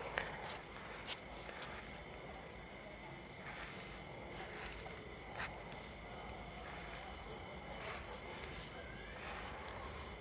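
Steady high-pitched chorus of night insects, crickets among them, with scattered footsteps and rustles through grass and brush.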